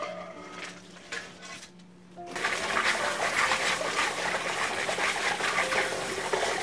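Tap water starts running about two seconds in and splashes through a stainless mesh strainer of red razor clams as they are rinsed by hand under the faucet.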